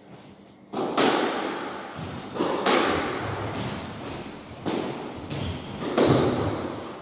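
Squash ball being struck by rackets and hitting the court walls during a rally: about seven sharp smacks, several in close pairs, each echoing in the hall.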